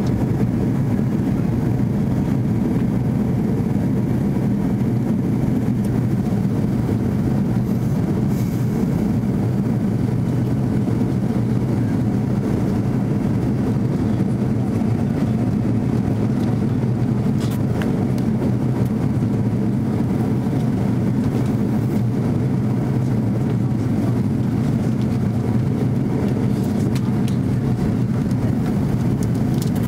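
Steady cabin drone of an Airbus A330 in flight, jet engines and airflow heard from a passenger seat by the wing.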